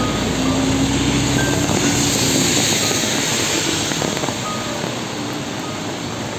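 Steady hiss of rain on a city street. A vehicle's engine hums past in the first two or three seconds and fades.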